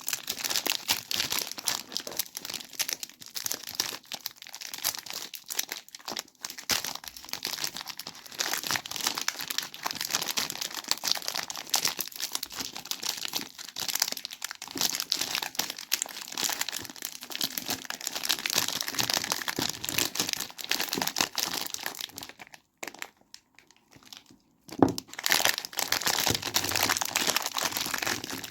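Soap packaging crinkled and torn open by hand, a dense crackle of wrapper noise. Near the end it stops for about two seconds, then a single sharp knock and the crinkling starts again.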